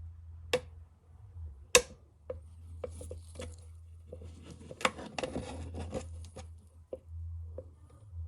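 Close handling noises: sharp clicks and knocks, the loudest about two seconds in, with a few seconds of rapid rattling and scraping in the middle, over a low steady hum.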